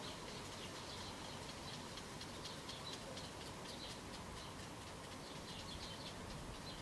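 Small birds chirping repeatedly with short, high notes, several a second, over a faint, steady outdoor background.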